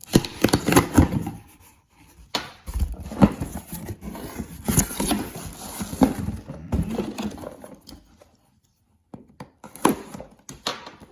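Packaging being handled and opened by hand: irregular rustling with clicks and knocks, pausing briefly about two seconds in and for about a second near the eight-second mark, as a set of camera wall mounts is unpacked.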